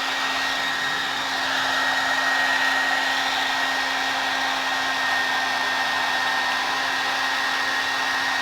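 Suzuka hair dryer, its case opened for repair, running steadily: a rush of air with a constant motor whine. It runs normally, showing that the motor part works and that the fault lies in its jammed power switch.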